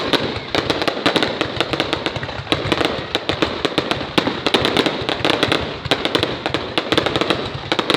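Fireworks going off in a dense, continuous run of rapid sharp cracks and pops.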